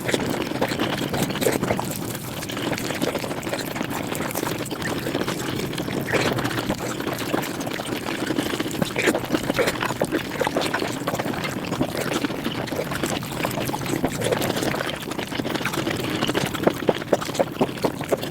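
Mukbang eating sounds sped up five times: chewing and mouth sounds running together into a dense, rapid stream of small clicks and smacks, with sharper smacks near the end.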